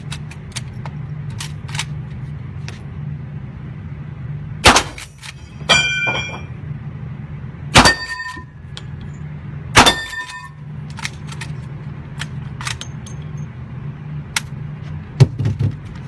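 Three loud gunshots about two to three seconds apart, each followed by a short metallic ringing clink, with fainter pops of other shots between them over a steady low hum.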